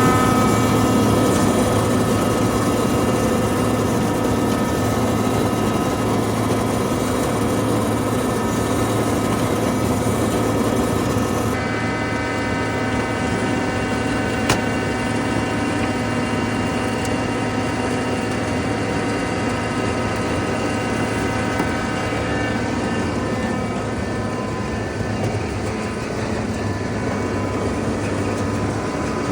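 Haybuster tub grinder running at idle to warm its hydraulic oil, with the tub valve shut off so it is not grinding: a steady mechanical hum with several constant tones. There is a single sharp click about fourteen seconds in.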